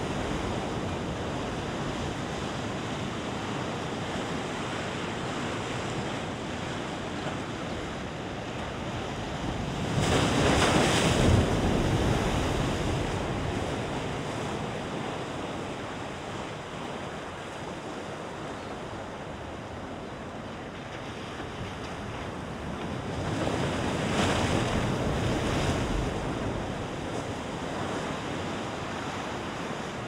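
North Sea waves breaking and washing over large boulders, a continuous roar of surf. Two bigger waves crash louder, about ten seconds in and again some fourteen seconds later.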